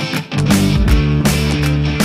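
Rock music with guitar and drums: held low bass notes under repeated drum hits.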